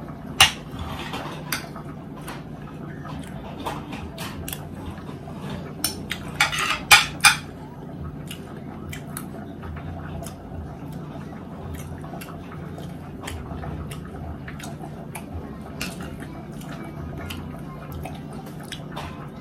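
Metal fork and spoon clinking and scraping on a plate while cutting steak: scattered sharp clicks, with a louder cluster about six to seven seconds in. A low steady hum lies underneath.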